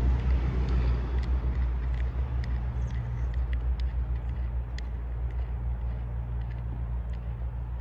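Steady low rumble that slowly fades, with faint small clicks scattered through it.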